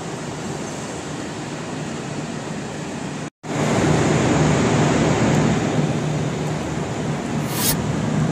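Steady hubbub of a large railway station hall. After an abrupt cut about three seconds in, a louder steady drone from a V/Line VLocity diesel railcar idling at the platform, with a brief hiss near the end.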